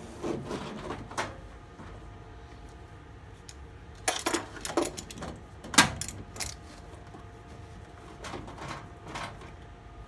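Irregular clicks, knocks and rattles of a plastic-and-rubber washing-machine drain hose and its fittings being worked back into place inside the machine, with a cluster of knocks about four to five seconds in and one sharp knock near the six-second mark.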